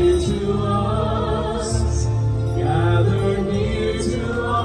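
A singer performing into a handheld microphone over an accompanying backing track, holding long notes with vibrato.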